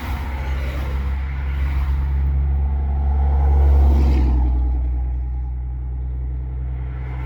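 A steady low rumble of a vehicle idling, with traffic passing by that swells and fades, loudest about four seconds in.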